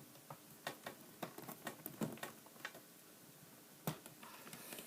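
Light, irregular clicks and ticks of a small flathead tool picking at the glued screw covers on a laptop's plastic screen bezel, with a louder single click about four seconds in.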